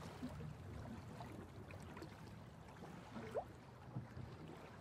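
Faint, steady, low rumbling background noise with no clear source, and a brief rising tone about three and a half seconds in.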